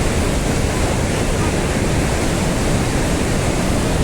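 Rhine Falls' water crashing down, heard as a loud, steady, unbroken rush of falling water.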